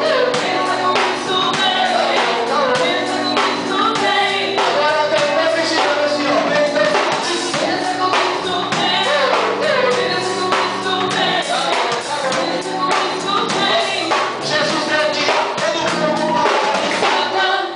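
Loud music with several voices singing over a steady drum beat and tambourine.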